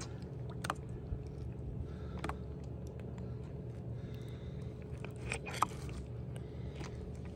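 A squid being handled with rubber gloves on a plastic bait board: a few short wet clicks and smacks, the loudest about five and a half seconds in, over a steady low hum.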